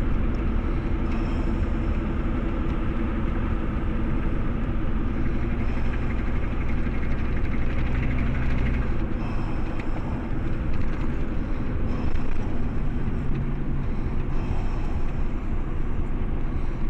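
Steady low rumble of a running motor vehicle, its low tone shifting about nine seconds in.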